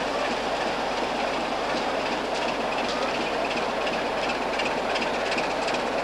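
BR Class 25 diesel locomotive with its Sulzer six-cylinder engine, hauling a train slowly into a station platform: a steady running rumble with light clicking from the wheels a few times a second.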